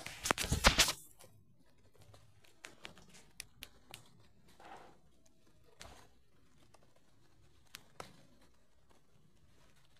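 Close handling noise: a burst of rustling knocks in the first second, then scattered light clicks.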